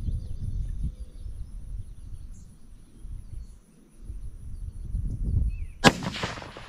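A single shot from a Savage 110 rifle in .204 Ruger firing a 40-grain Hornady V-MAX factory load, about six seconds in. Before it, wind rumbles on the microphone.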